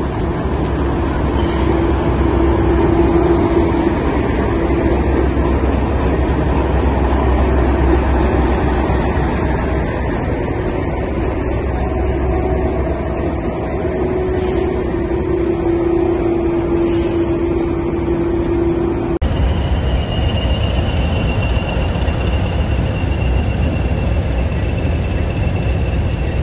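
Diesel locomotive engines running as a locomotive draws slowly past, a steady drone with deep rumble from a Class 37's English Electric engine. About two-thirds of the way through it cuts to a pair of Class 20 diesel locomotives working, with a thin high steady whine over their engine note.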